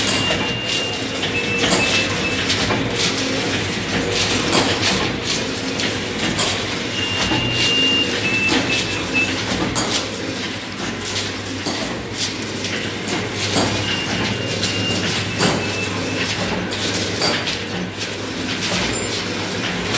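Automatic paper plate (pattal-dona) making machine running: a steady hum under frequent irregular clacks and knocks, with occasional short high squeaks.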